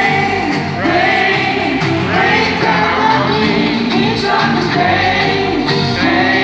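Live pop-rock band playing with sung vocals and guitar, heard from the audience in a large arena hall.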